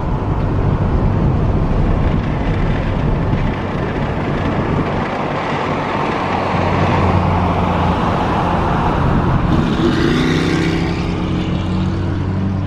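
A car engine running steadily with road and wind noise, rising in pitch about ten seconds in as it speeds up.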